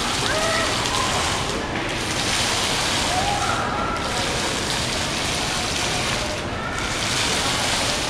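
Water from a computer-controlled valve waterfall (a digital water curtain) falling and splashing. It comes in surges that swell and ease off about every two seconds.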